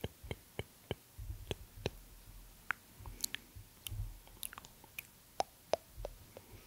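Close-up handling noise on a microphone hugged against the chest: scattered small clicks and ticks with soft, low thumps now and then.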